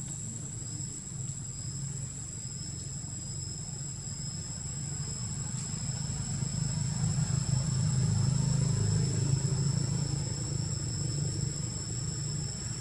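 Low engine rumble of a passing vehicle, growing louder about halfway through and easing off near the end. Under it run two steady, high-pitched insect drones.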